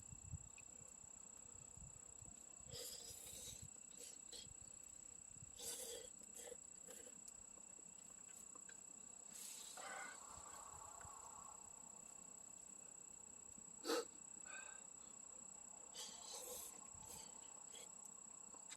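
A faint steady high-pitched insect trill, with a few brief soft sounds of someone eating ramen noodles.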